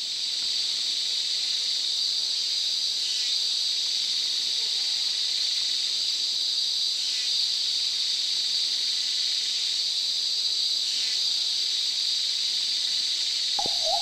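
Tropical rainforest insect chorus: a steady high-pitched drone. A steady whistle-like tone comes in just before the end.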